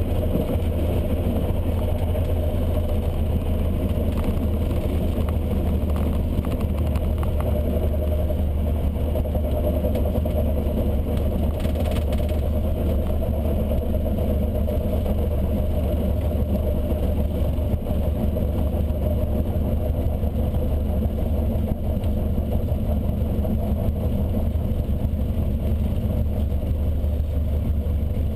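A Cessna 152's four-cylinder Lycoming engine and propeller running steadily at low power, heard inside the cabin during the landing rollout.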